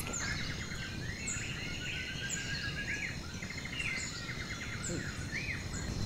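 Forest ambience: several birds chirping and trilling in quick, varied calls, over a steady high insect drone.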